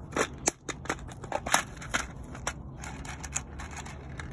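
Irregular light clicks and rattles of handling a clear plastic parts box of screws and plastic wall anchors, the sharpest click about a second and a half in.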